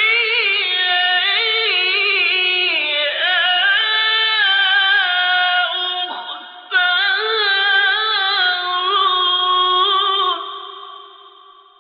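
A male Quran reciter's voice, drawing out a long melodic, ornamented phrase in tajweed style, its pitch wavering and sliding. There is a short break for breath about six seconds in, and the sound trails off with echo near the end.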